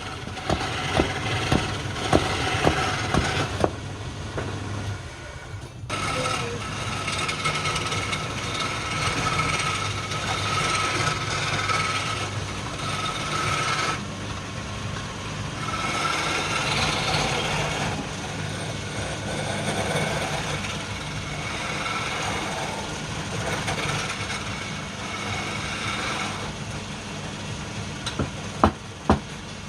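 Wood lathe running with a steady motor hum while a turning tool scrapes and cuts the spinning wood, the cutting noise stopping for a couple of seconds and starting again. A few sharp knocks in the first three seconds and twice near the end.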